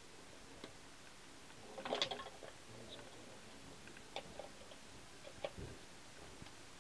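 Plastic wiring-harness connectors being handled and pushed together on an engine's injector connectors: a brief rustle and clatter about two seconds in, then a few faint, sharp clicks.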